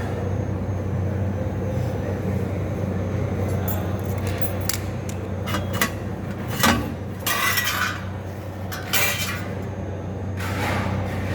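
Metal tools or parts clinking and tapping several times, the sharpest knock about two-thirds of the way through, over a steady low machine hum.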